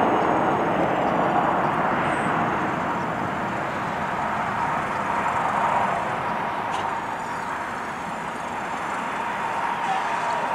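Jet engines of a LATAM Boeing 787 running as the airliner rolls along the runway, heard from a distance as a steady rumble and hiss.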